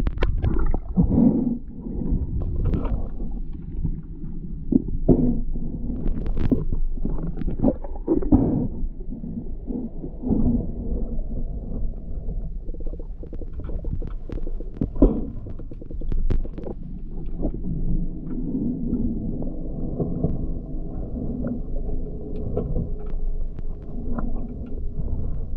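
Underwater sound heard through a submerged camera: a steady muffled low rumble of moving water with scattered clicks and knocks, and a faint steady hum that joins in about halfway.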